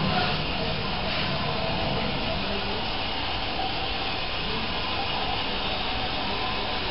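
A small robot car's two Johnson geared DC motors running steadily as it drives forward over stone floor tiles. The sound is a constant, even whirring noise with no breaks.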